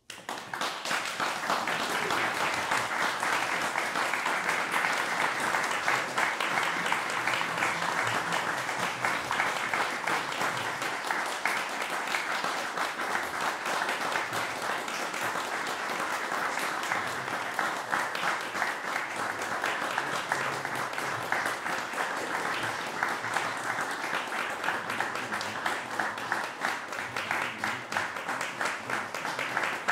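Audience applause, breaking out at once out of silence and going on steadily as a dense patter of clapping.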